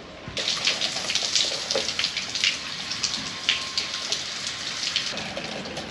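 Outdoor shower running: water spraying down and splattering on a person and onto a wooden mat and wet concrete. It is a steady hiss full of small splashes that starts abruptly just after the start.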